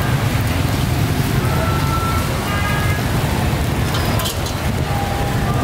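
Steady street noise: a continuous low rumble and hiss, with faint voices in snatches.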